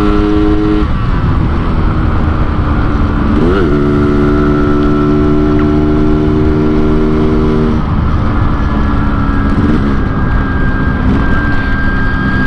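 Yamaha RX-King 135cc single-cylinder two-stroke engine running at steady cruising revs while riding. The bike is tuned Medan-style for a raspy 'ngorok' exhaust note, and wind rushes over the microphone. About three and a half seconds in the revs dip and rise quickly, then hold steady again.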